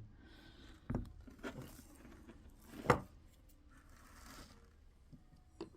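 Quiet handling noises as a vacuum wiper motor is worked on at the bench: faint scraping and rustling, a knock about a second in, a sharper clack near three seconds, and a small click near the end.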